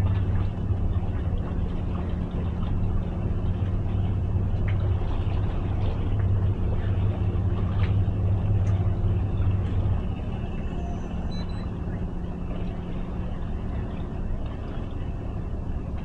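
Twin outboard motors on a small towboat running at low speed under load, a steady low hum, easing back about ten seconds in.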